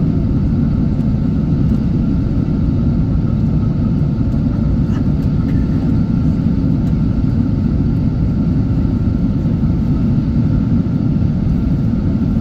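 Steady cabin noise inside a Boeing 777-200ER descending on approach with its flaps extended: a constant low rumble of engines and airflow, with a faint steady whine above it.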